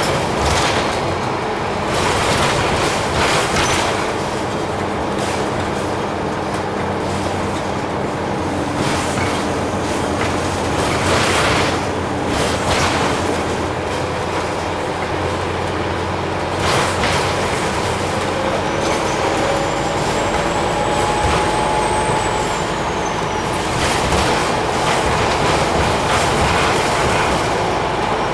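Interior of a Scania OmniCity single-deck bus under way: a steady engine drone and road noise, with knocks and rattles from the body and fittings. A whine rises in pitch about two-thirds through.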